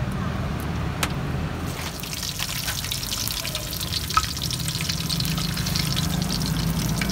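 Skewered seafood sausage pieces going into a wok of hot oil and frying, with a dense sizzle and crackle that starts about two seconds in. A low steady hum runs underneath.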